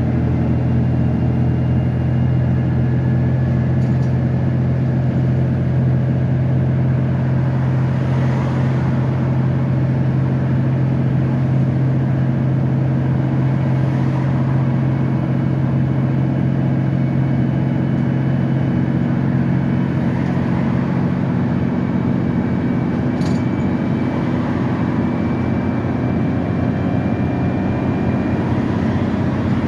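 Volvo B9TL double-decker bus's six-cylinder diesel engine running with a steady low note, which weakens about two-thirds of the way through.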